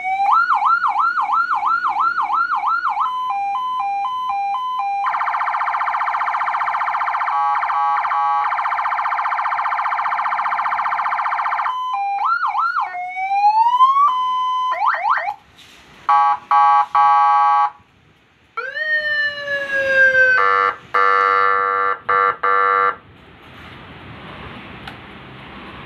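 Electronic siren from a 200-watt ambulance light-bar amplifier and speaker, switched through its different tones one after another: a falling wail, a fast yelp of rapid up-and-down sweeps, a two-note hi-lo, a long steady buzzy horn tone, short pulsed tones and more sweeps. It stops a few seconds before the end.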